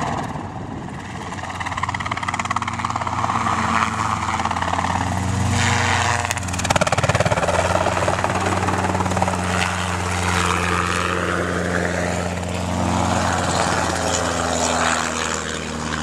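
Robinson R22 helicopter flying low and manoeuvring close by: steady piston-engine and two-blade rotor drone that swells and fades as it banks and passes, loudest about six to seven seconds in.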